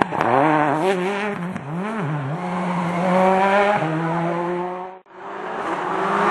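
Rally car engine revving up and down, then held at high revs with a gear change. The sound breaks off abruptly about five seconds in, and another car's engine comes in and builds.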